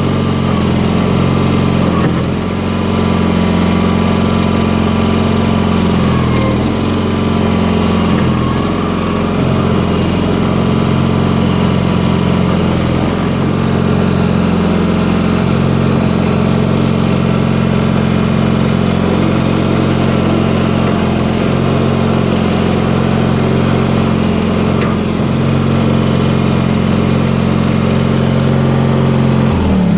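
Terramite T5 mini loader's engine running steadily while the loader bucket is worked with the hydraulics, its low note shifting a little as the load changes.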